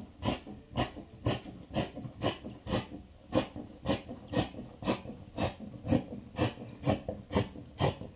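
Scissors snipping through printed fabric, cutting a curve: a steady run of sharp snips, about two a second.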